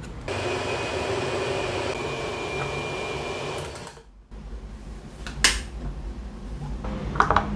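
Electric vacuum blender running steadily, blending black soybeans and water into soy milk, then stopping about four seconds in. A sharp click follows about a second and a half later as the jar is handled.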